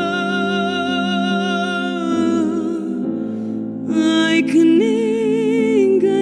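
A woman singing a slow Portuguese ballad with a wavering vibrato over sustained instrumental accompaniment. Her voice pauses briefly in the middle, then a new phrase begins about four seconds in.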